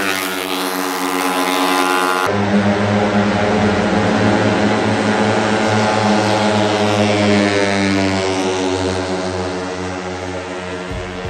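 Race-tuned Vespa automatic scooters held at full throttle in a drag race, a steady high-revving engine drone. About two seconds in it switches from the scooter launching close by to the pair running down the strip, and it slowly fades as they pull away.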